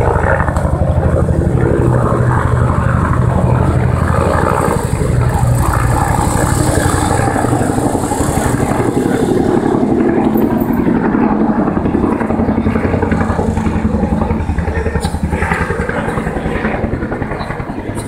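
Two-bladed Bell 205/212 (Huey-family) helicopter flying past on approach, its main rotor beating in a fast, steady thump along with the turbine's whine. The deep rotor beat thins out in the last few seconds.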